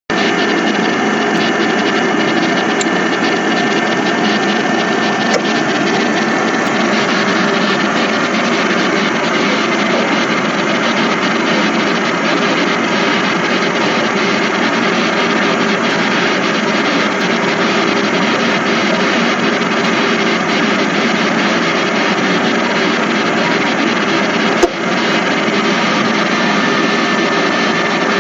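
Air fryer oven's convection fan running steadily with a loud, even rushing noise, with a single sharp click about 25 seconds in.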